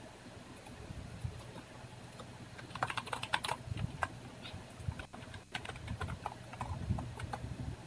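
Typing on a computer keyboard: a quick run of keystrokes about three seconds in, then scattered clicks, over a low steady hum.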